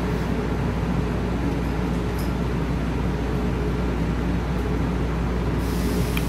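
Steady low mechanical hum with several held low tones, and a brief high hiss near the end.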